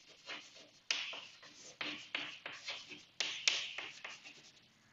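Chalk scratching and tapping on a chalkboard as a word is written out, in a series of short, irregular strokes.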